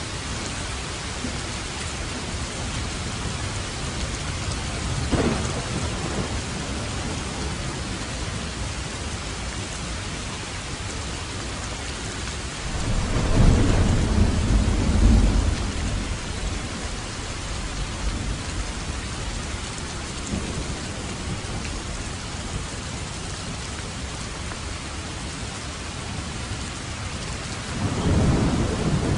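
Steady rain falling, with thunder: a short crack about five seconds in, a long low rumble around the middle, and another rumble starting near the end.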